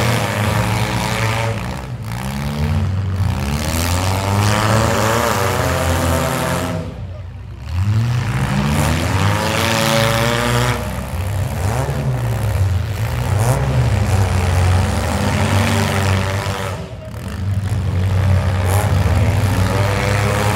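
Several demolition derby cars' engines revving up and down together as the cars drive and ram in the arena. The noise dips briefly twice, about seven and seventeen seconds in.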